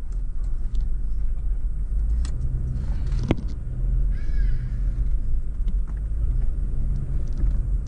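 Steady low rumble of a car's engine and tyres heard from inside the moving car, with a single sharp click a little over three seconds in.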